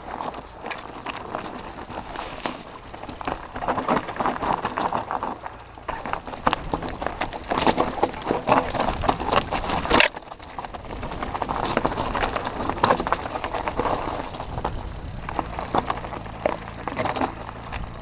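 Mountain bike rolling fast down a rocky trail: tyres crunching over loose stones and the bike rattling over the bumps in a continuous crackle of clicks and knocks. A bush brushes and slaps against the camera about ten seconds in.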